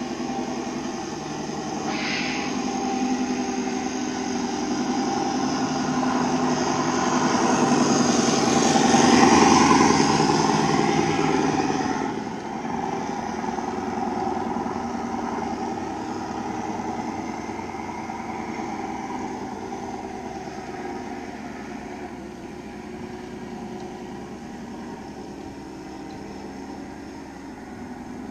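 Radio-controlled scale Scania tipper truck driving past, its onboard sound module playing a simulated diesel engine note. The note grows louder as the truck approaches, peaks about ten seconds in, drops off and then fades as it drives away. A short hiss comes about two seconds in.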